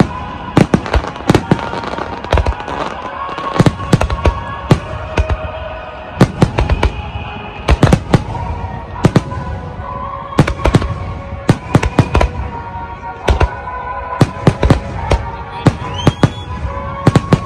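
Aerial fireworks shells bursting in rapid succession, a dense run of sharp bangs. Music with held tones plays underneath, and a short rising whistle sounds near the end.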